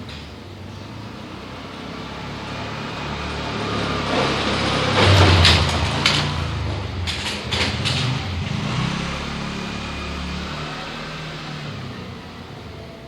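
A motor vehicle passing close by: its engine and road noise grow louder, peak about five seconds in, then fade away.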